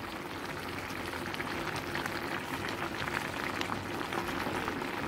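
Chicken and mushroom stew bubbling in an open clay pot on the stove: a steady run of small popping bubbles.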